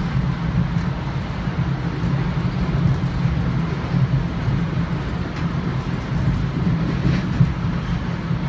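Steady rumble and rail noise of a moving commuter train heard from inside the coach, with a few faint clicks over the constant low drone.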